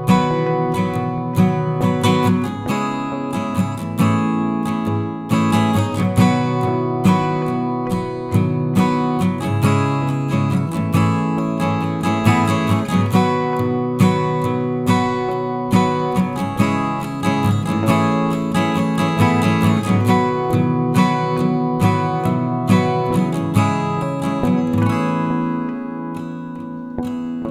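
Background music on acoustic guitar, plucked and strummed in a steady rhythm.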